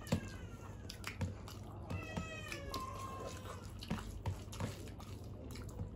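Eating by hand from steel plates: fingers mixing rice against the metal and chewing, with scattered sharp clicks. Over it a high-pitched call with a falling pitch sounds several times, at the start and again around two to three seconds in.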